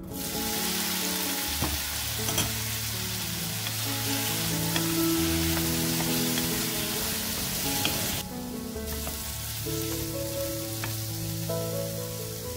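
Diced raw potatoes hitting hot oil in a nonstick pan, starting a loud sizzle at once, then stir-fried with a wooden spatula with a few sharp knocks against the pan. The sizzle drops to a softer level about eight seconds in.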